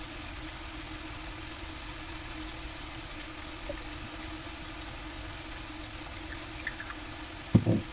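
A steady low mechanical hum in a kitchen, with a single loud thump near the end.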